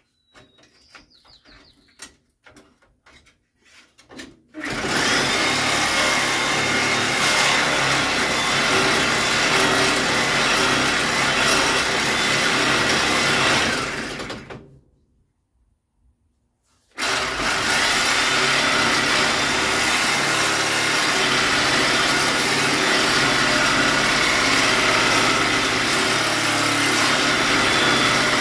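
Handheld electric grinder working steel on a Scout 800's body, with a steady motor whine over a harsh grinding noise. It runs for about ten seconds, stops for about two, then runs again, after a few seconds of handling clicks at the start.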